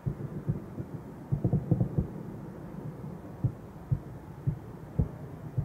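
Distant fireworks shells bursting: a series of muffled low booms, a quick flurry of them about a second and a half in, then single booms about every half second.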